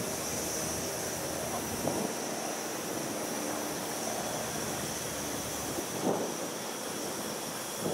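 A small coal-fired Gauge 1 live-steam locomotive approaching from a distance along the track, with a steady hiss and wind on the microphone, and a faint knock now and then.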